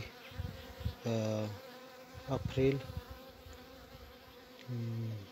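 Honeybees buzzing around an opened wooden hive, with a few short, louder buzzes as single bees fly close past.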